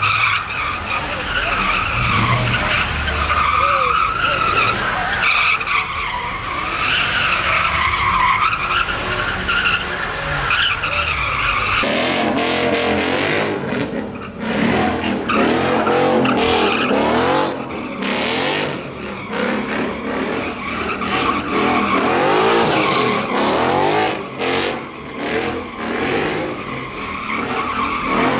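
Car tyres screeching as a car is spun in donuts, a long wavering squeal; about twelve seconds in the sound drops lower and comes in quick rising and falling sweeps with brief breaks.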